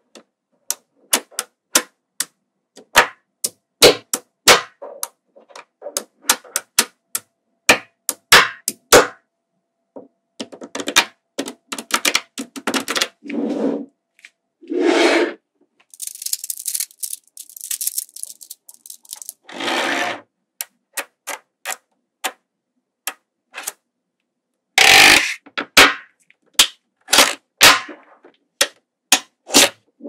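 Small magnetic balls clicking and snapping together in quick, irregular clicks, some louder than others, broken by a few half-second rushing, scraping sounds.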